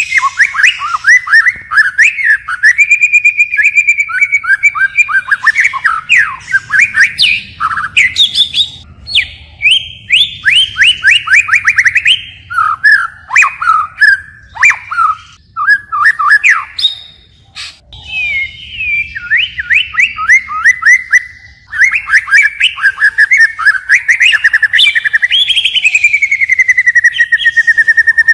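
White-rumped shama singing a long, varied song of rapid whistled trills and sweeping phrases, switching phrase after phrase. There is a brief pause about two-thirds of the way through, and a long falling whistle near the end.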